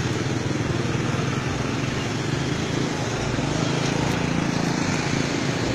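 Street traffic noise: vehicle engines running steadily at idle, a low hum under a constant wash of road noise.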